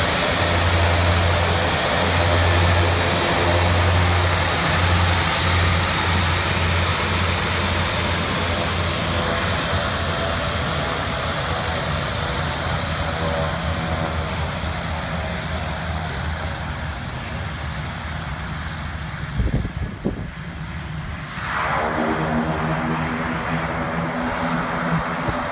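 de Havilland Canada DHC-6 Twin Otter's twin PT6A turboprop engines running, with a steady low propeller drone under a turbine hiss. It grows gradually quieter as the aircraft taxis away. A brief low thump comes about three-quarters of the way through.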